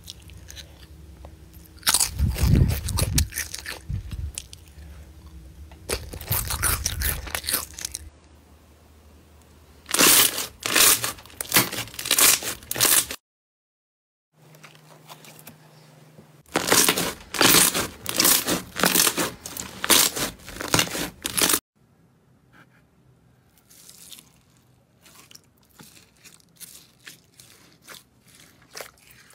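Slime being squeezed, stretched and pressed by hand, giving dense crackling and popping clicks in bouts of a few seconds each. Near the end, flat hands pressing into a tray of purple slime make fainter, sparser crackles.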